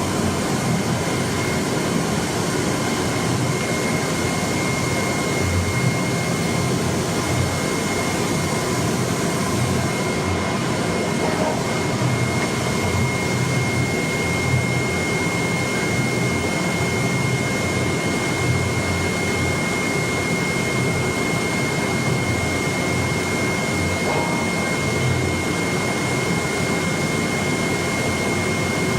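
Flatbed knife-cutting plotter running: a steady, blower-like rush with a constant high whine that comes in about a second in.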